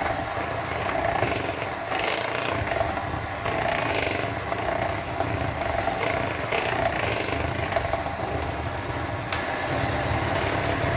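Bosch electric hand mixer running steadily, its twin beaters whisking thick cake batter in a plastic bowl. The motor hum is joined by a louder swish every second or two as the beaters churn through the batter.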